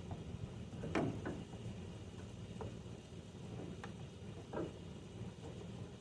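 A few light plastic clicks and knocks as a bulb socket is worked against the back of a Dodge Dakota tail light housing to line up its keyways, the loudest about a second in, over a steady low hum.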